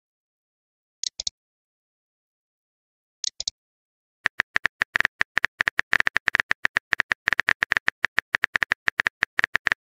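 Simulated phone-keyboard typing sound effect from a texting-story app: rapid, even key-tap clicks, about ten a second, starting about four seconds in as a message is typed. Before that come two brief clusters of three quick clicks, about a second and three seconds in.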